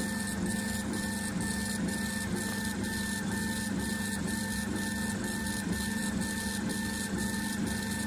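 K40 CO2 laser engraver raster-engraving: the head's stepper motors whirr as it sweeps back and forth in an even rhythm, about two passes a second. A steady hum from the running extractor fan sits underneath.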